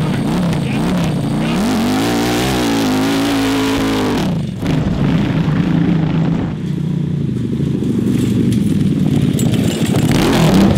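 900cc Ducati V-twin engine of a go-kart revving hard under full throttle, its pitch rising and falling as the kart slides through dirt. About four and a half seconds in, the sound dips briefly, then the engine runs on more steadily at high revs.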